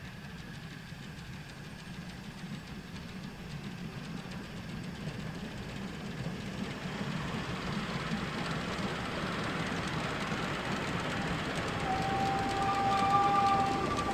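Narrow-gauge steam locomotive and its carriages approaching along the track, the running and wheel noise growing steadily louder. Near the end two steady high-pitched tones set in, one after the other.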